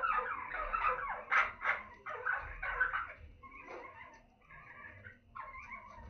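A flock of budgerigars chirping and chattering, many short calls overlapping. The chatter is busiest for the first three seconds, thins out, then picks up again near the end.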